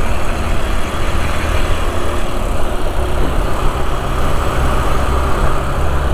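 Motorcycle engine running steadily at a low, even note, with no revving, amid traffic noise.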